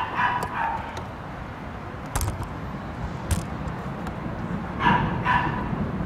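A dog barking: a quick run of two or three barks at the start and another near the end, with a couple of sharp clicks between them over a steady background hiss.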